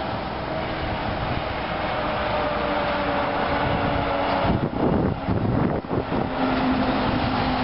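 B-double semi-trailer truck's diesel engine and tyres, growing louder as it approaches and passes at highway speed. A rush of air buffets the microphone as it goes by, about five seconds in.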